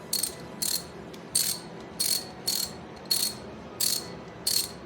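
Fine-tooth 72-tooth reversible ratchet clicking in short back-and-forth strokes, about eight quick bursts of rapid, fine clicks roughly half a second apart.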